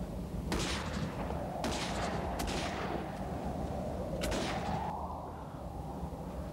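Gunfire on a war-film soundtrack: four sharp reports spread over about four seconds, each trailing off, over a steady low rumble.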